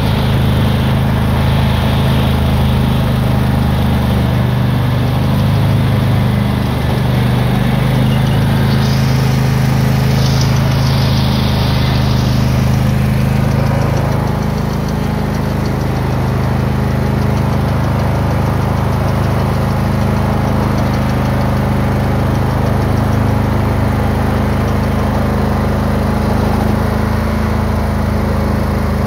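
Craftsman lawn tractor engine running steadily as it drives, with a rushing haze of gravel under the tyres and the towed land plane; the hiss brightens briefly about ten seconds in.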